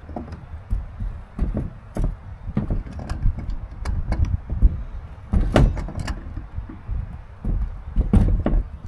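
Irregular knocks, clicks and clatter of plumbing fittings and tools being handled while pipe joints are fitted, with heavier knocks about five and a half and eight seconds in.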